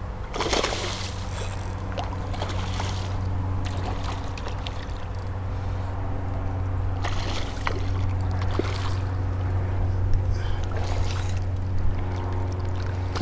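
Hooked fish thrashing at the water's surface on a fishing line, a series of short splashes, over a steady low hum.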